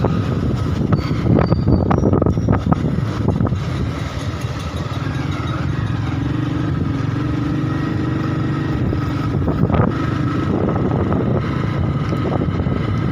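Motorcycle engine running steadily on the move, with the rush of road and passing traffic; a few brief louder spells about a second in and again near ten seconds.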